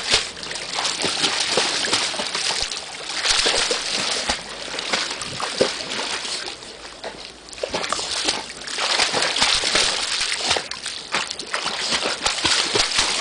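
A dog splashing and paddling in pool water, the water slapping and sloshing in repeated surges.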